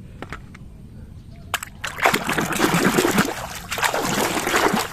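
A few light clicks, then from about two seconds in, water splashing and sloshing unevenly as a muddy plastic toy is washed by hand.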